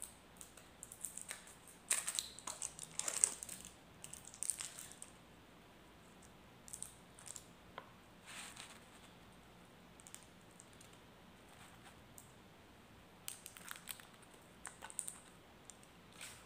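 Plastic wrapper on a piece of cheese crinkling in short, faint bursts as it is peeled back and handled. The loudest crackling comes about two to three seconds in.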